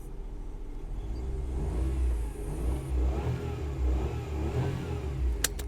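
A car engine running and being revved a few times, its pitch rising and falling with each rev, with two sharp clicks near the end.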